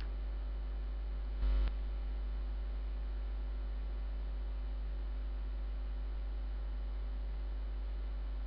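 Steady low electrical hum on the recording, with one short blip about a second and a half in.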